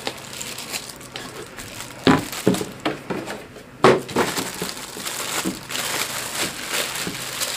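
Packaging crinkling and rustling as a loudspeaker is unboxed by hand, with scattered sharper knocks, the loudest about two and four seconds in.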